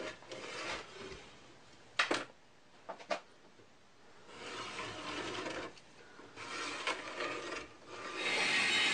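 Pencil scratching along a wooden board in several strokes, with a few light knocks from handling the wood. Near the end a louder, steadier noise begins.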